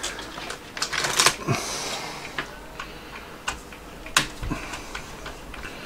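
Irregular small clicks and taps of a screwdriver and small metal parts against the metal frame of a Commodore 1571 floppy drive mechanism being taken apart.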